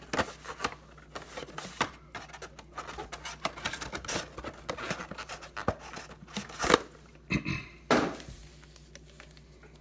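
A cardboard trading-card box and foil card packs being handled on a table: a run of rustles, taps and scrapes, with two sharper knocks about seven and eight seconds in.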